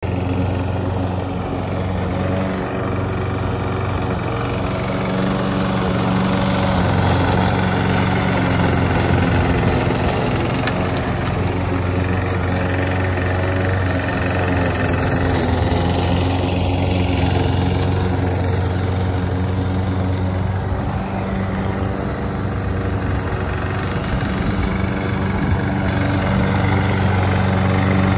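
Gas lawn mower engine running steadily at an even pitch as the radio-controlled mower drives and cuts grass.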